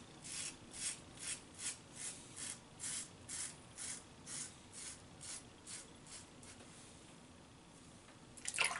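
Razor blade scraping through lathered beard stubble in short strokes against the grain, about three strokes a second, fading out after six seconds or so. A short splash of water near the end.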